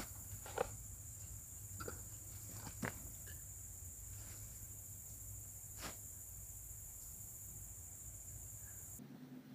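Faint steady high insect chirring over a low hum, with a few sharp clicks as a knife works a green wooden stick. The insect sound cuts off abruptly near the end.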